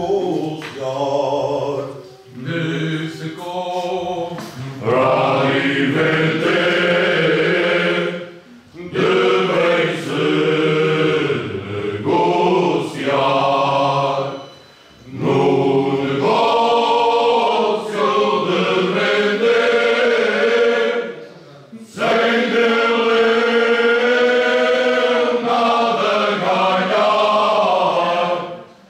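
A men's group singing Cante Alentejano, unaccompanied and in several voices. The song moves in long, slow phrases with short breaks for breath between them.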